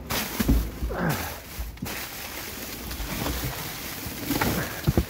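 Black plastic trash bags rustling and crinkling as they are shoved and pulled about, with irregular bumps of handling.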